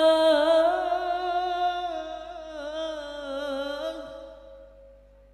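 A man singing an unaccompanied sholawat line solo into a microphone: a long held note that breaks into wavering, ornamented melismatic turns, then fades out about four seconds in.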